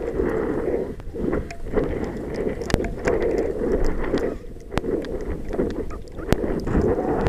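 Wind rushing and buffeting over the microphone of a model rocket's onboard camera as it drifts down under its parachute, a low rumble that swells and dips in gusts, with scattered sharp clicks.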